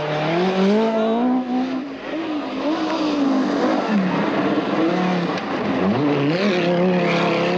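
Group B rally car engines at full throttle on a gravel stage, the pitch climbing through each gear and dropping at the shifts, with drops about two, four and six seconds in.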